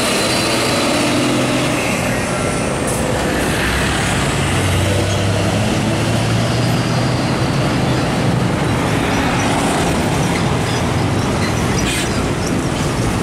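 Heavy diesel tractor-trailer trucks driving past with their engines running, over steady road traffic noise; the engine note grows louder in the middle of the stretch.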